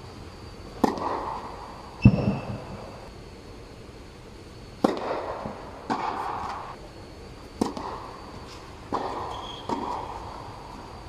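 Tennis rally on an indoor court under an air-supported dome: sharp pops of rackets striking the ball and the ball bouncing, about seven in all at uneven intervals, each with a short echo. The loudest, about two seconds in, has a deeper thud.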